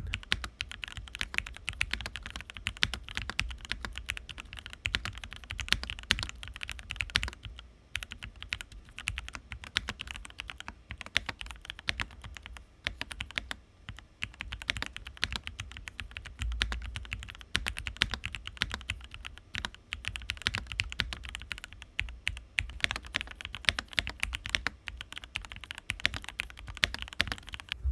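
Fast, continuous typing on a DROP CSTM80 mechanical keyboard with Gateron Milky Yellow Pro KS-3 linear switches, DROP ABS keycaps and a PC plate, its case foam removed, with a few short pauses. The keystrokes sound sharp.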